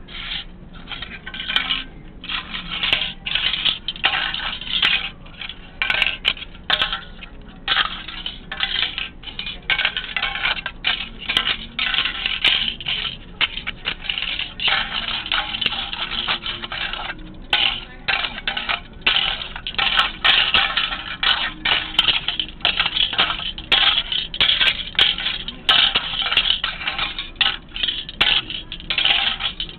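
A sheet of shiny metallic foil being crumpled and handled: dense, irregular crinkling and crackling with brief pauses.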